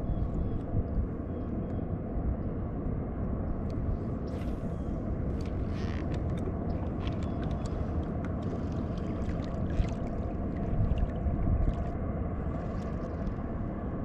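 Steady low rumble of water and wind around a kayak on a river, with scattered light clicks and short rustles from the spinning rod and reel being worked.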